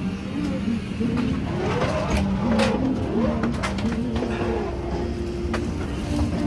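Steady low hum of an airliner cabin's ventilation during boarding, with faint wavering tones over it and a sharp clack about two and a half seconds in.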